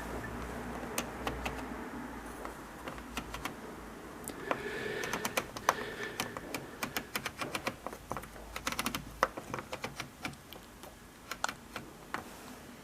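An irregular run of sharp clicks, dozens of them, bunched most thickly in the middle. A faint low hum runs under the first part, and a faint steady tone sounds for a second or so about four and a half seconds in.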